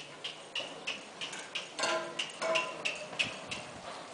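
Horse in driving harness moving at a steady gait on arena sand: a regular ticking of hoofbeats and harness, about three beats a second. A louder, mixed sound comes in about two seconds in.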